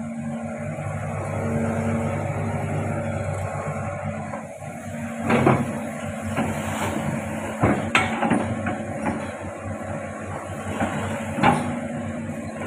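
Hitachi hydraulic excavator's diesel engine running steadily while it works, with three sharp knocks about five, eight and eleven seconds in.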